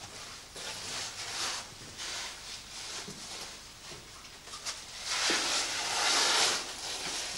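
Rustling and scraping of a caver's muddy oversuit and boots against the rock walls of a narrow rift as he climbs through it. It comes in uneven bursts, and the loudest scrape lasts about two seconds near the end.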